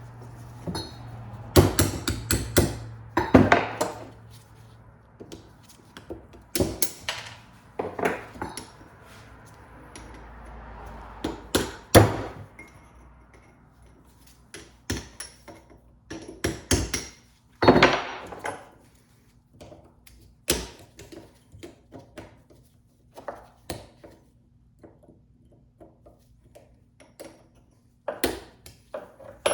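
Hammer blows on a chisel driving out the U-joint retaining clips of a double-cardan driveshaft yoke: irregular sharp metal strikes, some in quick runs, with quieter pauses between.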